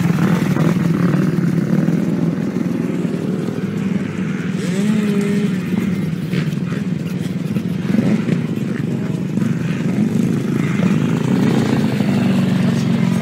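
Motocross bikes' engines running and revving, one engine's pitch rising and falling about five seconds in.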